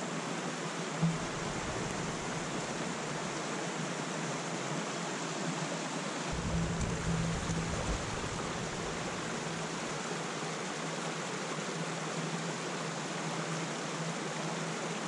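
Steady rush of a small creek running over rocks and a small cascade.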